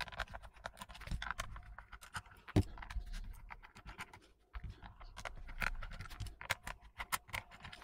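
Small screwdriver backing screws out of a Bluetooth speaker's plastic housing: irregular light clicks and scratches of the bit and screws, with one louder knock about two and a half seconds in.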